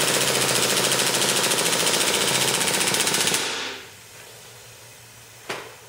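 KWA MP7A1 gas-blowback airsoft submachine gun firing a long full-auto burst, a rapid even clatter of the bolt cycling, fired to use up the gas left in the magazine in the cold. The burst tapers off about three and a half seconds in, and a single sharp click comes near the end.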